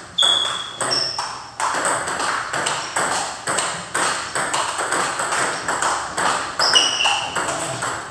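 Table tennis rallies: celluloid balls clicking off rubber paddles and the tabletop about twice a second, each hit ringing briefly in the hall. A few short high squeaks come near the start and again near the end.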